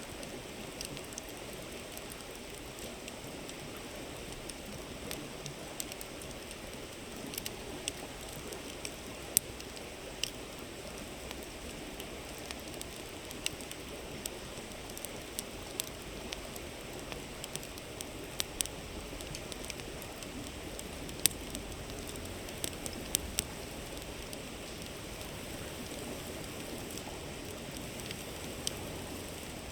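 Campfire crackling, with irregular sharp pops, the loudest about nine and twenty-one seconds in, over the steady rush of a flowing river.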